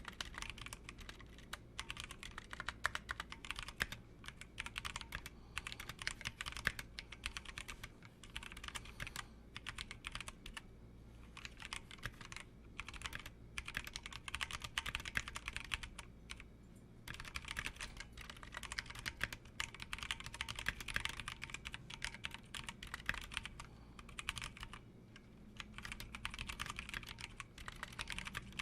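Typing on a Massdrop ALT High Profile mechanical keyboard with its stock, unlubed Halo True switches and unmodded stabilizers: rapid keystrokes in bursts with short pauses.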